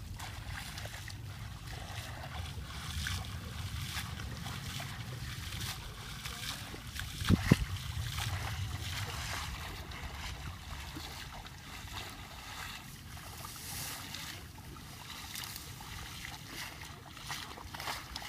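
Splashing of a person wading through shallow muddy water in a flooded field, over a steady low rumble, with one sharp knock a little past seven seconds in.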